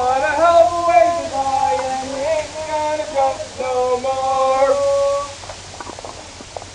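A person's voice singing a wordless tune for about five seconds, holding long notes with small slides in pitch, then stopping; a few faint sharp ticks follow.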